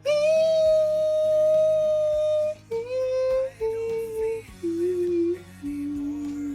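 Background music with a sung or hummed melody: one long held note, then shorter notes stepping down in pitch over a steady accompaniment.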